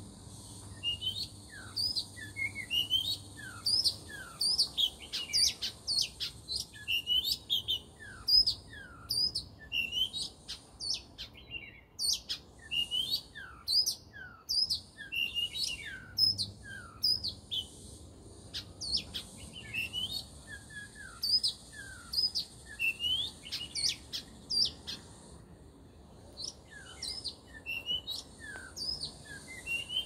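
Oriental magpie-robin singing: a long, varied string of sweet whistled notes and downward slurs, pausing briefly about twelve seconds in and again near the end. A steady high insect drone runs underneath.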